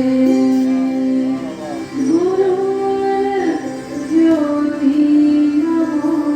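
A woman singing a Sanskrit devotional chant to the sacred lamp in long held notes that glide between pitches, over a steady instrumental accompaniment.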